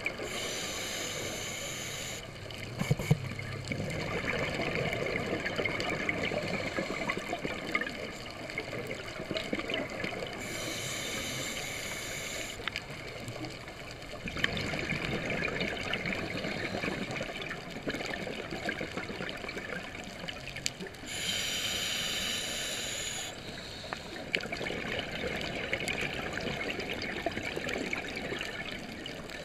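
Scuba diver breathing through a regulator underwater: three long hissing inhalations about ten seconds apart, each followed by the gurgling rush of exhaled bubbles.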